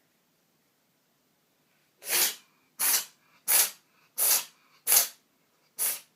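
A cat sneezing six times in quick succession, starting about two seconds in, roughly one sneeze every two-thirds of a second. It is a fit of repeated sneezing that the cat can't stop.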